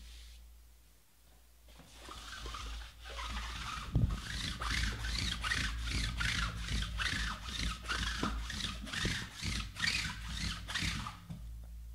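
Quick, rhythmic rubbing and rustling strokes, about three a second, from hands working at the wrapping of a sealed trading card box; it starts about two seconds in and stops shortly before the end.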